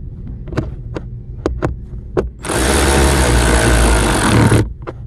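A few light clicks of the screw being handled and started, then a power driver runs for about two seconds, driving in the last screw that holds the new blower motor in place.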